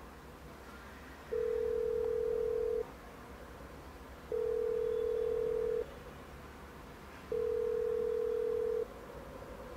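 Telephone ringback tone heard through a mobile phone: three long, steady beeps at one pitch, evenly spaced about three seconds apart, meaning the line is ringing at the other end and the call has not yet been answered.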